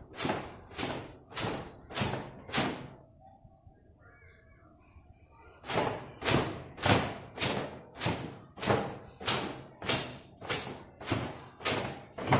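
Long wet hair being towel-dried: a towel slapping against the hair in a steady rhythm, about one and a half to two strokes a second, stopping for a couple of seconds near the start and then resuming.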